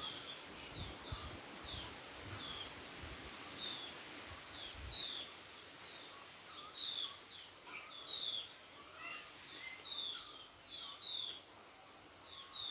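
A small bird chirping over and over, short high notes that drop slightly in pitch, about one or two a second, with lower chirps joining in the middle. Dull low thumps sound under the chirps in the first few seconds.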